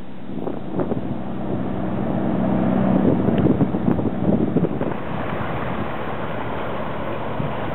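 Ferry's engine running with a steady low hum, with wind buffeting the microphone on deck. About five seconds in the hum gives way to wind noise and small waves on a rocky shore.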